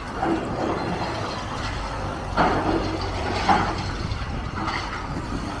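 Demolition machinery working on a building: a steady low engine rumble under scraping and grinding against masonry, with louder scrapes about two and a half and three and a half seconds in.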